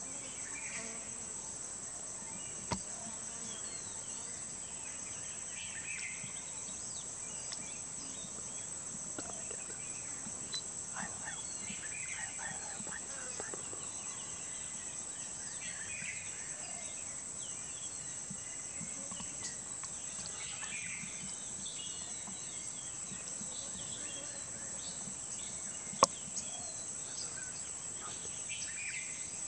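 Steady high-pitched insect drone with bird chirps scattered through it every few seconds. Two sharp clicks break in, a faint one near the start and a louder one near the end.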